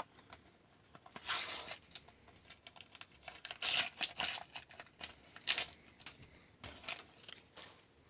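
Paper sticker-pack wrappers being ripped open by hand: several short tearing rips with crinkling in between, the loudest about a second in.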